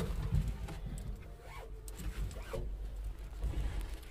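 Cloth curtain rustling and handling noise as it is pushed aside inside an excavator cab whose engine is off, over a low rumble. A few faint short chirps come near the middle.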